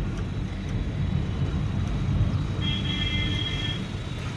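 Steady low rumble of road and engine noise heard inside a moving car's cabin. A little past halfway, a vehicle horn sounds one steady note for about a second.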